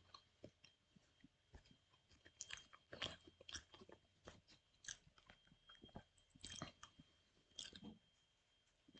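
Faint close-up chewing of a crunchy snack with the mouth closed: irregular soft crunches, clicks and smacks a few times a second.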